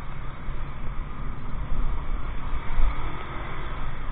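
Motorcycle riding along a road: its engine running under a steady, loud rumble of wind and road noise.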